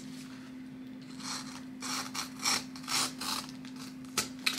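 Box cutter slicing through a well-packed parcel in several short cutting strokes, with a sharp click near the end.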